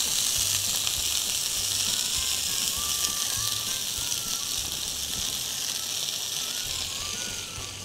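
Whole cherry tomatoes sizzling steadily in a hot frying pan, a high hiss that eases slightly toward the end.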